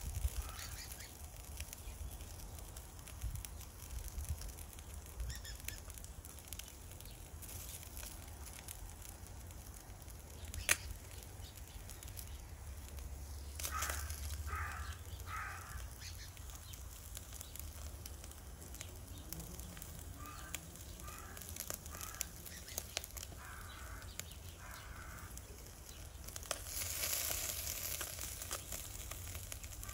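Miso-marinated fish fillet grilling on a wire net over charcoal in a shichirin: faint sizzling with scattered small crackles and one sharp pop about eleven seconds in. Crows caw several times, first in a group of three about fourteen seconds in, then again a few seconds later.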